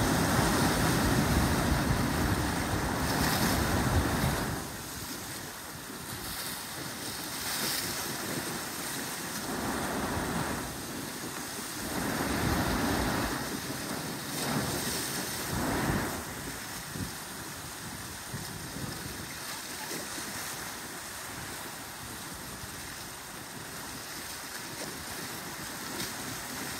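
Ocean waves breaking on shore rocks and surging white water through a narrow gap between them. A loud wash for the first four seconds or so, then a few shorter surges, settling into a steadier, quieter hiss of moving water.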